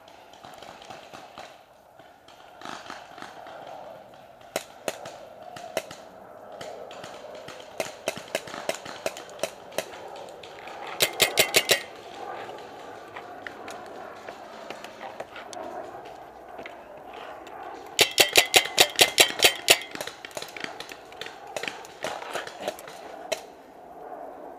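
Paintball markers firing: scattered single pops, then a rapid string of about eight shots near the middle and a longer rapid string of a dozen or so about three quarters of the way through. The two rapid strings are the loudest sounds.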